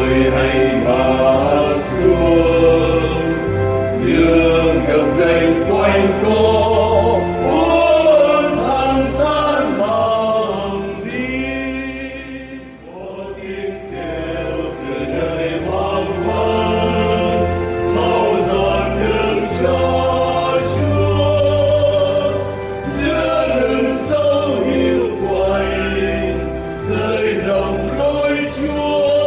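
Choir singing a Vietnamese Christian hymn in Vietnamese over instrumental accompaniment with a low bass line. The music eases off briefly about twelve seconds in, then resumes.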